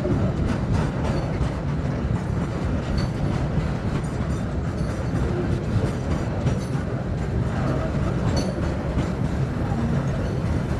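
Loaded freight train running past, a steady low rumble with faint clicks from the wheels.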